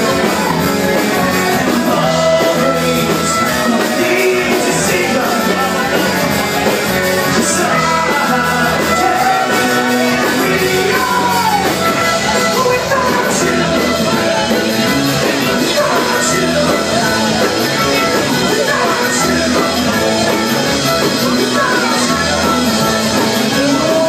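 A live band playing a rock song with acoustic guitar, fiddle, electric bass and drums, with a singer's voice over the top, heard from among the audience.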